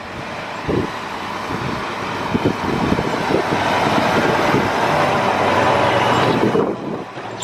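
Farm tractor towing an implement passing close by, its engine and the clatter of the towed equipment growing louder to a peak about two-thirds of the way through, then falling away sharply near the end.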